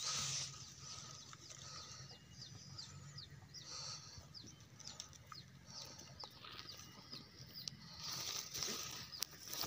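Faint rustling of grass stalks and wet mud as a hand probes a small eel hole at the edge of a rice paddy, louder near the end. Short high chirps repeat over it through the first few seconds.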